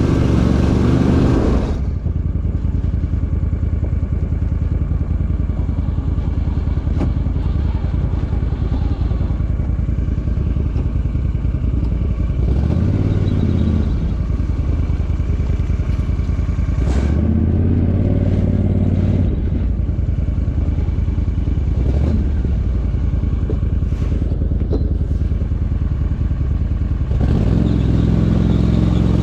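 Argo amphibious ATV engine running steadily while the machine is driven over a rough, muddy trail, its revs rising twice for a moment in the middle, with scattered knocks and rattles.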